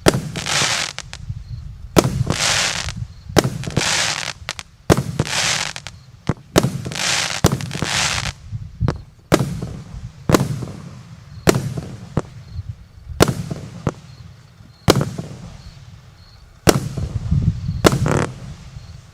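A multi-shot firework cake fires shot after shot, more than a dozen in all, roughly one a second. Each shot is a sharp report followed by up to about a second of crackling hiss from the burst.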